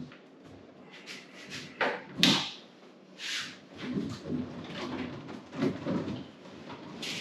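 Plywood camper-kit parts being handled: wood knocking, scraping and sliding against wood. The loudest is a cluster of sharp knocks about two seconds in.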